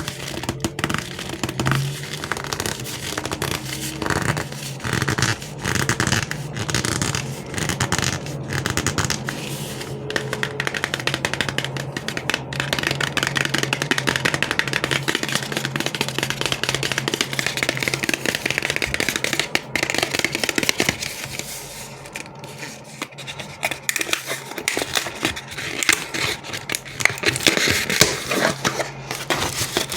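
Chocolate and candy packaging being handled: crinkling, rustling and scraping, with many small clicks.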